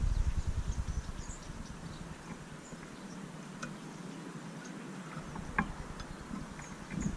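Wind rumbling on the microphone, dying away about two seconds in and returning near the end, with faint scattered high bird chirps and a few short clicks at a garden feeder.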